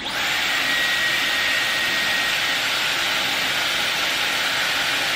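Dyson Airwrap hair styler blowing air steadily through its curling barrel, with a faint high whine in the first half. It starts abruptly and cuts off near the end.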